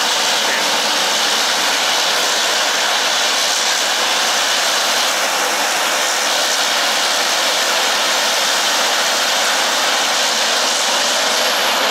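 Twin turboprop engines of a Dornier Do 228 running on the ground, a loud, steady rushing noise with no change in level.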